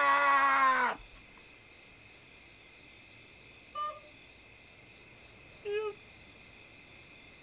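A man's long, drawn-out yell, sliding slightly down in pitch, that cuts off about a second in. After it there is a faint steady high hum and two short squeaky cries, one about four seconds in and one about six seconds in.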